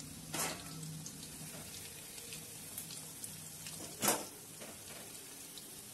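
Chicken pakoras deep-frying in oil in an iron kadai: a steady sizzle with small pops over a faint low hum. A silicone spatula knocks or scrapes the pan twice, about half a second in and about four seconds in, as the finished pakoras are lifted out.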